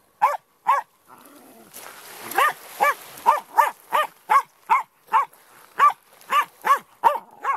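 Wire-haired Jack Russell terrier barking at the incoming waves: two sharp barks, a pause of about a second and a half while a small wave washes in over the pebbles, then a rapid run of a dozen or so barks at two to three a second.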